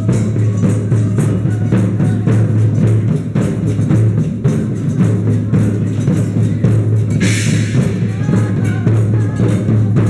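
Drum circle: many djembes and other hand drums played together with a drum kit in a dense, steady rhythm. A cymbal crash sounds about seven seconds in.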